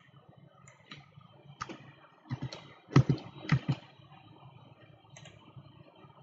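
Keystrokes on a computer keyboard and mouse clicks, a dozen or so sharp clicks, with the busiest and loudest run about two to four seconds in, over a faint steady hum.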